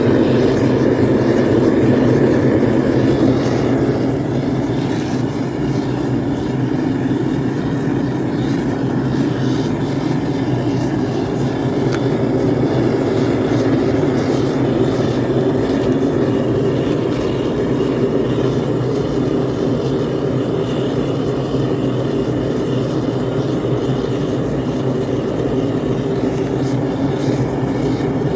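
Lit foundry furnace burning with its lid off: a loud, steady rushing of the burner flame with a low hum underneath, slightly louder for the first few seconds.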